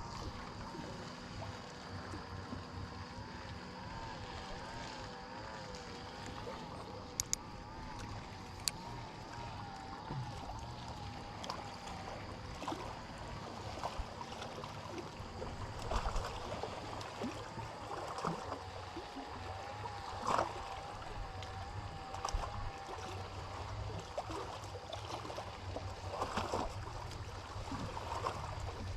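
A boat's engine running steadily with a low hum and a wavering, warbling tone that fades in and out, with water sounds and a few light knocks.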